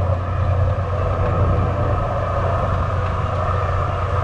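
Sailing yacht's inboard engine running steadily under way, a low even hum with a wash of noise above it.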